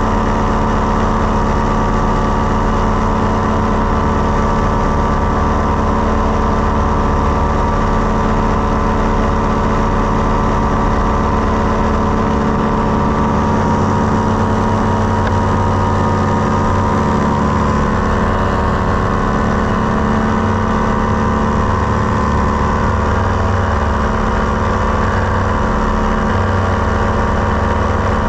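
Paramotor trike's engine and propeller running loud and steady at a constant throttle in flight, an unchanging drone.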